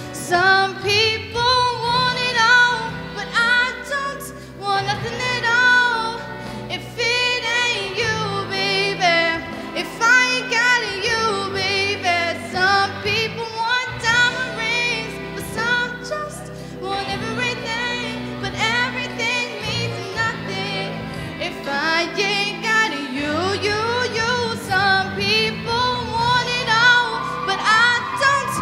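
A woman singing live into a handheld microphone over instrumental accompaniment, with held notes that waver in pitch.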